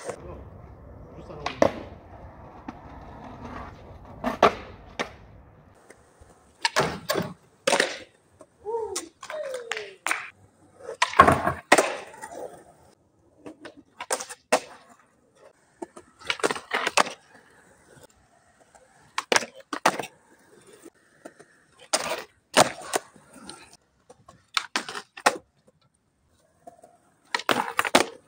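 Skateboards on concrete: wheels rolling, then a string of sharp tail pops, board slaps and landings, one trick after another.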